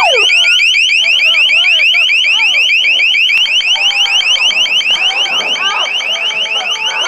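Ambulance electronic siren sounding a fast yelp: loud, high-pitched rising sweeps repeated many times a second, with people shouting beneath it.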